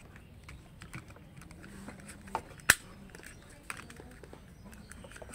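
A smartphone being fitted into the phone clamp of a handheld gimbal: scattered plastic clicks and knocks from the handling, the sharpest a little under three seconds in.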